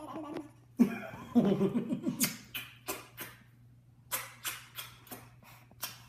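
Burbling mouth sounds: a voiced, fluttering lip-trill burble, then a run of about ten short, sharp breathy puffs, quick at first and then more spaced out.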